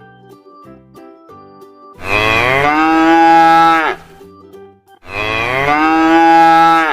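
Cow mooing twice, two long calls of about two seconds each with a short gap between, over faint background music.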